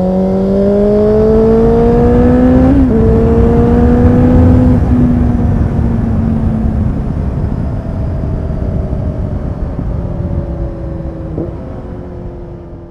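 Kawasaki Z800 inline-four with an Akrapovic exhaust pulling hard through the gears, rising in pitch with two quick upshifts about two seconds apart, then cruising with steady wind rush. A brief blip near the end comes before the sound fades out.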